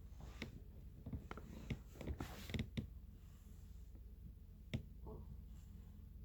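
Faint clicks and soft rustling in a quiet room, bunched together in the first three seconds, with one more sharp click near the end.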